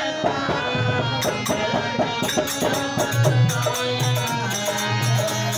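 Live bhajan music: sustained instrument tones, with jingling hand percussion keeping a quick beat from about a second in and deep drum beats joining about three seconds in.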